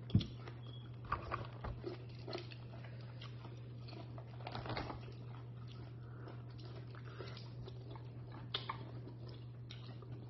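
Close-up chewing and mouth smacks as lobster meat is eaten, with scattered small clicks as meat is picked from the shell. A sharp knock comes just after the start, and a steady low hum runs underneath.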